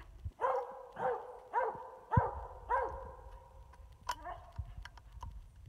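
Coonhound baying at a treed raccoon: a run of about five ringing barks, nearly two a second, that fades out after about three seconds.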